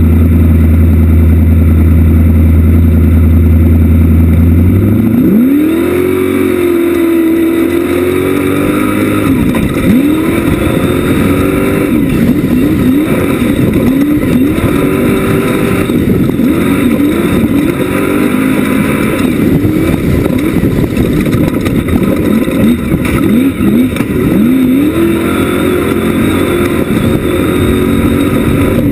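Class 1 off-road race buggy engine, first holding a steady low note, then revving up hard about five seconds in as the buggy gets under way. After that the engine speed climbs and drops again and again under hard driving.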